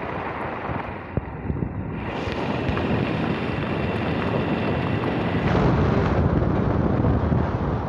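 Wind buffeting and rushing over the microphone while riding at speed, with the rumble of the moving vehicle underneath; it gets louder about six seconds in.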